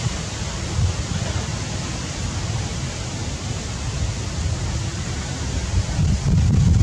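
Steady outdoor noise of wind buffeting the microphone: a low, uneven rumble under an even hiss, swelling a little near the end.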